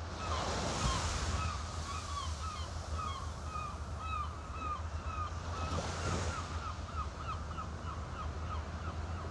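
Seaside ambience: gulls calling over and over above a steady wash of wind and surf.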